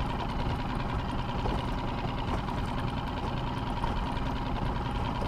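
Boat motor running at a steady low speed, an even hum without change.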